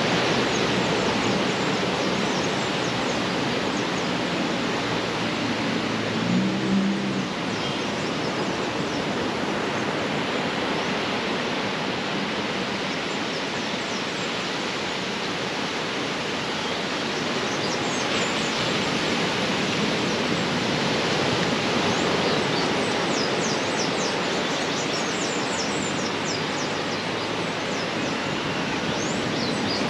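Steady rushing noise of sea surf breaking on a beach. About six seconds in a brief low hum rises above it, and for the last several seconds a run of high, short, falling chirps sounds over the surf.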